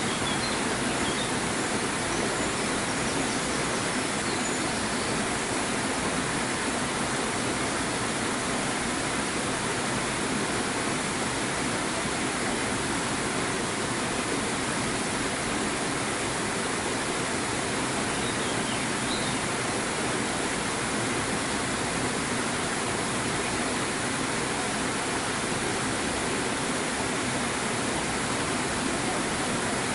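Steady rush of flowing water, an even hiss with no change in level throughout. Faint high chirps come through a couple of times.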